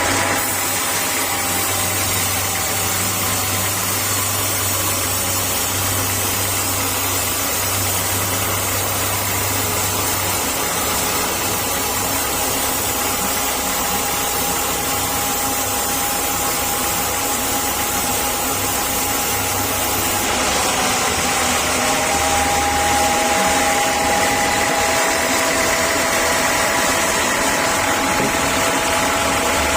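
Sawmill saw machinery running steadily, with a constant whine and hum; the tone shifts slightly about twenty seconds in.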